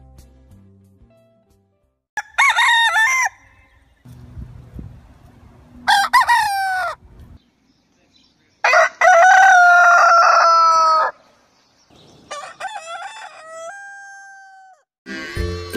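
Roosters crowing, four crows in a row, each ending on a held, steady note; the third crow is the longest and loudest.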